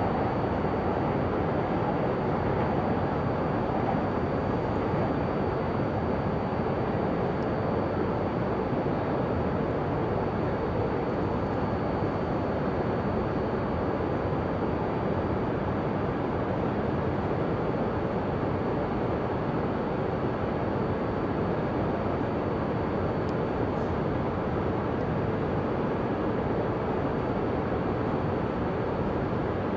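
Steady rumbling background noise at an elevated Shinkansen line in the city, with a faint high steady whine; the departing E2 series Shinkansen fades away in the first few seconds.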